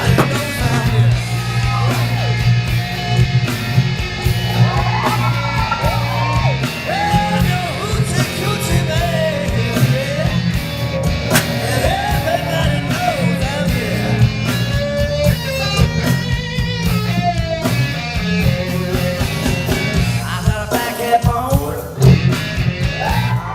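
Rock song performed live: a woman singing over guitar-led backing.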